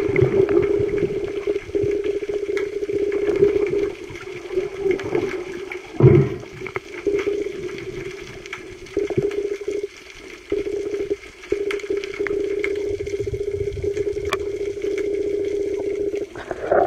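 Water noise on an underwater microphone, with a steady mid-pitched motor hum that cuts in and out again and again. Scattered clicks, and one loud low knock about six seconds in.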